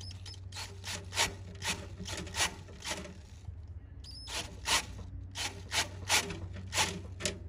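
Electric drill boring slowly through a drill guide into the cast-iron engine block of a Ford Model A, drilling out a broken head-stud hole for a thread insert. It gives a steady low motor hum under a regular scraping of the bit, about twice a second.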